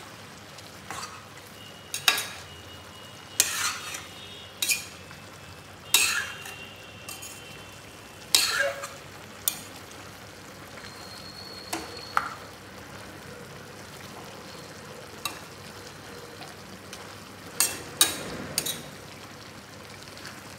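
A metal spoon stirring chunks of mutton in a stainless steel pot: about a dozen irregular clanks and scrapes of the spoon against the pot, over a steady faint sizzle of the meat frying.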